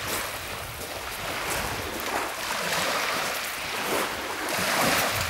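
Small waves breaking and washing over a shingle beach: a steady hiss that swells twice, about halfway through and again near the end.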